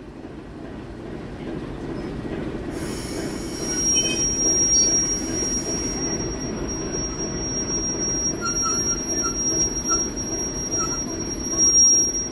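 Train rolling slowly in to a stop, its rumble growing louder, with a steady high-pitched squeal from the steel wheels setting in about three seconds in as it brakes.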